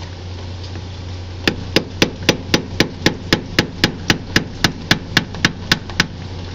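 Hammer tapping a screwdriver in a fast, even series of about eighteen strikes, about four a second, starting about a second and a half in, driving the screwdriver behind a leaking lower crankshaft oil seal on a 25 hp Kawasaki engine to pry it out.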